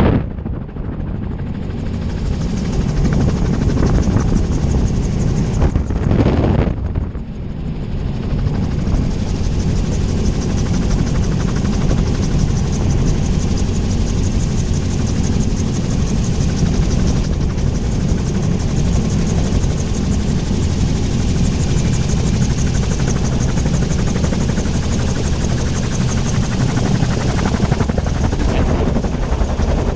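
Wind rush and rotor noise heard on board a gyroplane as it descends and lands, loud and steady, with the noise briefly dropping twice in the first seven seconds.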